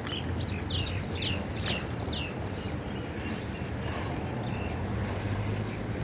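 Wind rumbling on the microphone, with a small bird giving a quick run of about six short, high, falling chirps in the first two seconds and a few fainter ones after.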